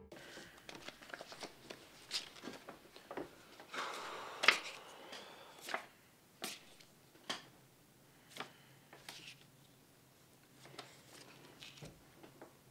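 Sheets of paper being handled and shuffled at a table, with a rustle about four seconds in and scattered sharp clicks and light knocks throughout.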